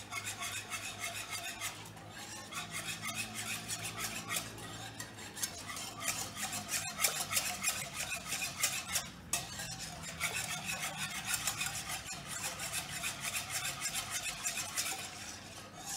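Wire whisk beating buttermilk, water and gram flour in a non-stick frying pan: a rapid, even run of wet swishing strokes with the wires scraping the pan, pausing briefly about seven and nine seconds in. The whisking breaks up the lumps of gram flour into a smooth kadhi base.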